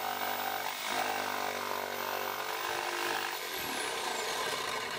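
Corded jigsaw running and cutting through a wooden rafter tail, starting the cut to take off the rotted end. A steady motor whine with the blade sawing through the wood; the whine drops away a little after three seconds in, leaving a rougher sound.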